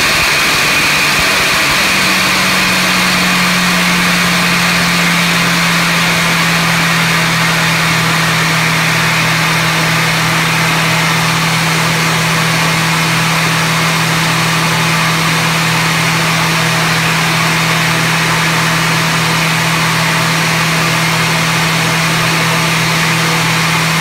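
ACE 600-1 jet air start unit running steadily after its overhaul: a loud even rushing noise with a low steady hum. The hum comes in about two seconds in and settles a little lower in pitch, while a high whine fades away over the first several seconds.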